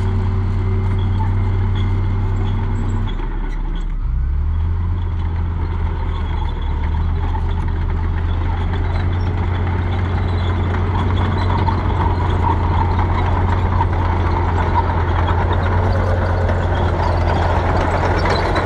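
Komatsu bulldozer's diesel engine running steadily under load as the blade pushes dirt, its note shifting down about three to four seconds in. The sound grows noisier in the second half.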